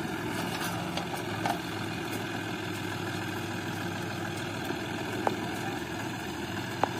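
John Deere 5050D tractor's three-cylinder diesel engine running steadily as it pulls a loaded trailer over rough ground, with a few short sharp clicks.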